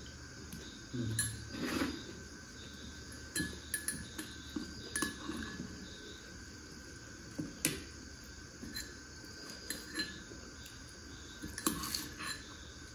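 Scattered light clinks of a spoon in a small metal tumbler and against ceramic plates during a meal, about one every second or two. A faint steady high-pitched tone runs underneath.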